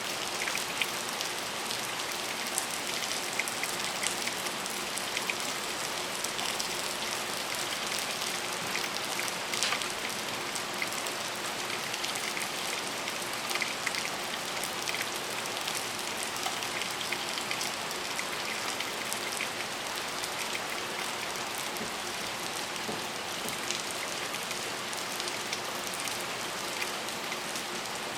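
Steady rain falling, a dense even hiss with many separate drop impacts ticking through it.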